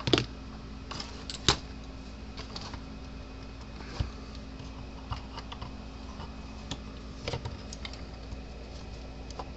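Scattered sharp clicks and knocks, spaced a second or more apart, from a stuck fuse mount being pushed and worked loose in a fence charger's case, over a steady low hum.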